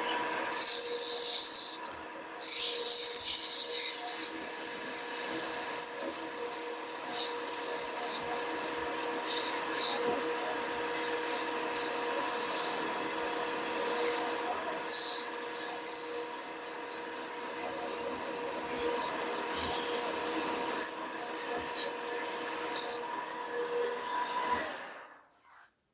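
Sandpaper pressed against a walnut knob spinning on a wood lathe: a loud hiss that swells and drops in long strokes over the steady hum of the lathe. Near the end the sanding stops and the lathe winds down to silence.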